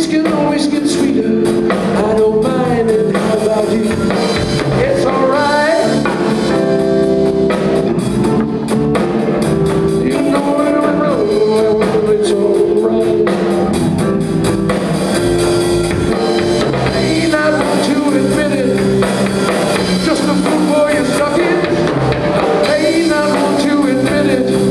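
Live blues-rock band playing electric guitars and a drum kit, with a lead melody sliding between held notes.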